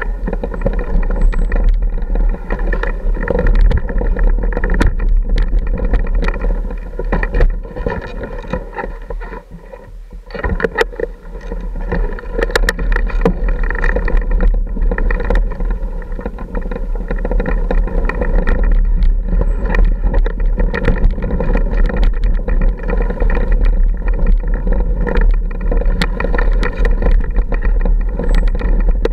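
Off-road motorcycle engine running at low trail speed, with frequent knocks and rattles from the bike bouncing over loose rock. The engine eases off for a couple of seconds about a third of the way in, then picks up again.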